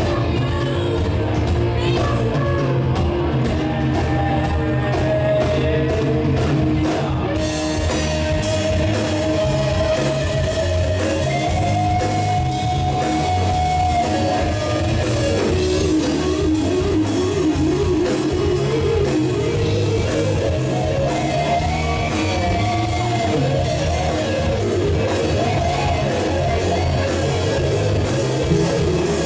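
Live rock band playing: electric guitar, bass and drum kit with singing. The cymbals come in brighter about seven seconds in.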